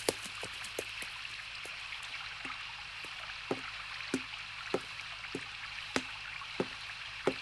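Footsteps on the wooden plank floor of a covered bridge: a steady walking pace of short knocks about every 0.6 s. They are faint at first and grow clearer from about halfway in, over a low steady hiss.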